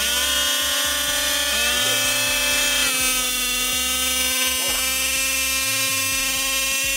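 Small two-stroke engines of 1/5-scale gas RC drag cars buzzing at a steady high pitch while the cars are held on the start line, the pitch stepping up slightly twice in the first couple of seconds.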